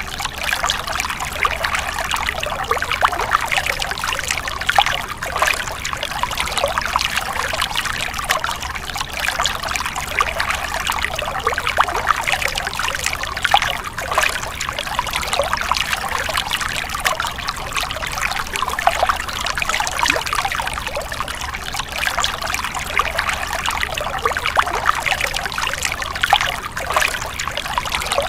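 Stream water splashing and trickling over rocks, a steady babble of small splashes.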